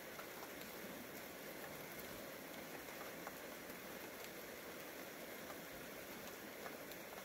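Steady rain falling, a faint even hiss with scattered small ticks of individual drops.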